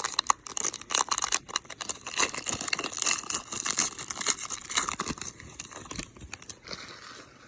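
Baseball card pack wrapper being torn open and crinkled by hand: dense crackling that dies down about six seconds in.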